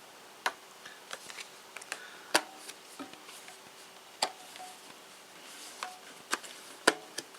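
Scattered sharp clicks and taps from hands working on a small cold-rolled steel toolbox, picking at the PVC liner insert that is stuck to the floor of its top compartment.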